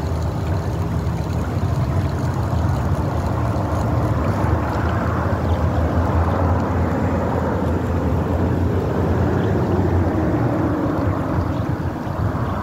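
Steady low rumble of wind buffeting the phone's microphone, over the rush of fast-flowing canal water.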